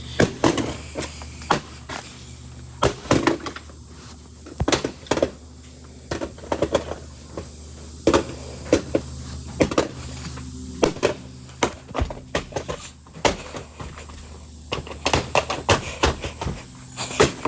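Irregular knocks and thuds of an alarm clock being knocked and kicked around, some coming in quick clusters, over a steady low hum.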